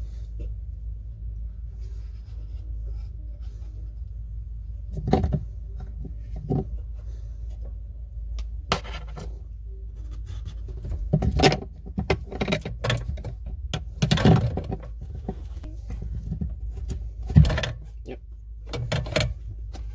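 Plastic sink drain parts being handled: irregular clicks, knocks and rattles of the P-trap pipe, slip nut and seal, the loudest a sharp knock about three seconds before the end, over a low steady hum.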